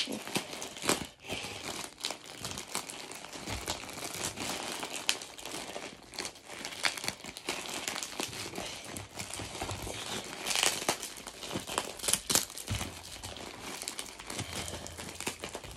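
Grey plastic mailing bag crinkling and rustling as hands work it open, with sharp crackles throughout and louder bursts about two-thirds of the way through.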